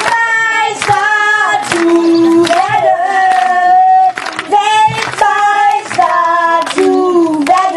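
Two young boys singing a German football fan song together in long held notes.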